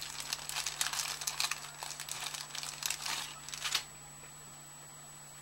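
Close crinkling and rustling as bead-embroidery materials are handled, a dense crackle that stops about four seconds in.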